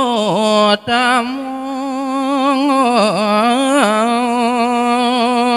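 A man singing a Balinese geguritan verse in long, held melismatic notes with a wide vibrato and a few swooping dips in pitch, with a short breath about a second in.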